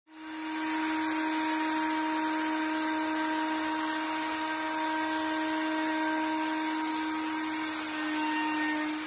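Plunge router running at high speed on a flattening sled, skimming the surface of an epoxy-and-walnut board: a steady high whine over hiss that dips slightly in pitch about eight seconds in.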